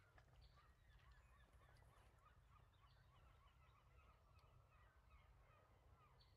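Very faint honking of a distant flock of geese, many short overlapping calls, over a low steady rumble.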